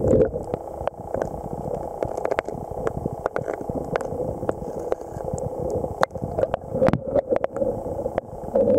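Water lapping and gurgling, with many small sharp clicks and knocks scattered through it.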